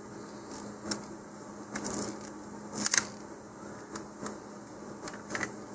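Handling sounds as fingers pick a small piece of tape off a plastic model rocket nose cone: a few brief clicks and scrapes, the sharpest about three seconds in.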